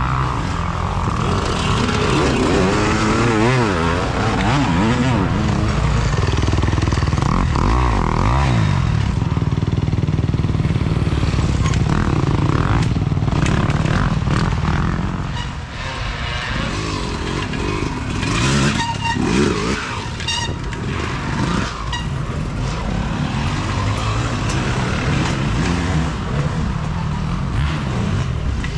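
Off-road dirt bike engines racing, revving up and down repeatedly as the bikes accelerate and back off.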